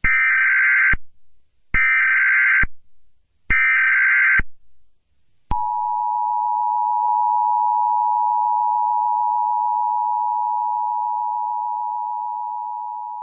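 Emergency Alert System opening tones: three short bursts of SAME header data tones, each just under a second, then the two-tone EAS attention signal starting about five and a half seconds in, a steady dual tone that holds and slowly fades.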